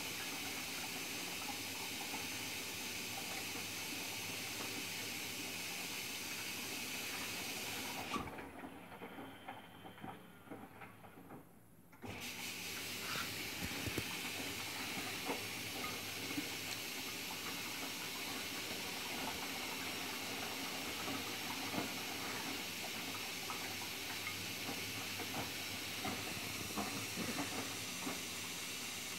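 Miele W Classic front-loading washing machine drum tumbling wet laundry, a steady hiss of water with small scattered knocks and sloshes. About eight seconds in the sound drops away for some four seconds, then starts again abruptly.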